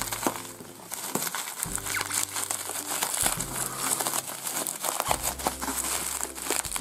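Bubble wrap crinkling and crackling as it is handled and pulled open by hand.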